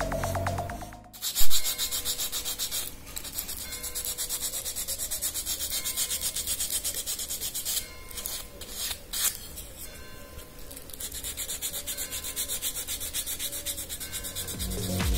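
Hand sanding of a carved Swiss stone pine (cirmolo) model with a small piece of abrasive paper, in quick, even back-and-forth strokes with a few short pauses. A loud knock comes about a second and a half in.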